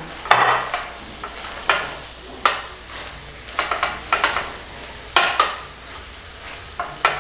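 A slotted utensil stirring flaked salt cod into a frying mix of peppers, onion and tomato in a stainless steel pot. Irregular scrapes and knocks against the pot come over a low sizzle.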